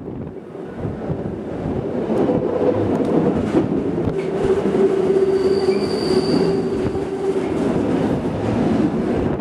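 Bernina Railway train running, heard from on board: a steady rumble of wheels on the rails, with a high wheel squeal that comes in about two seconds in and holds through the middle before fading near the end.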